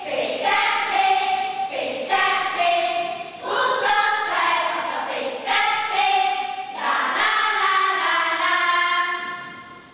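A group of children singing a song together, in phrases of held notes.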